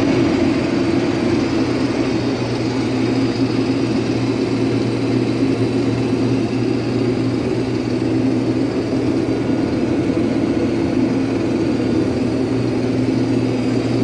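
Case IH 2366 rotary combine running under load while harvesting wheat: a steady, unchanging mechanical drone of engine and threshing drives, heard through the cab.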